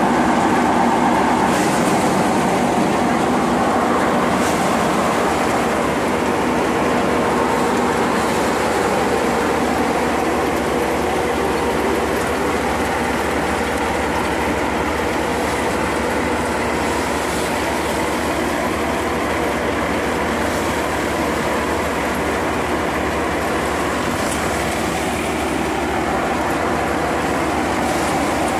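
Power paddy thresher running steadily with a continuous mechanical drone while rice sheaves are fed into it and threshed.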